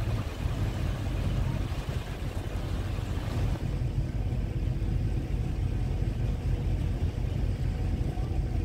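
Boat engine running with a steady low drone, heard on board, under a higher hiss that drops away about three and a half seconds in.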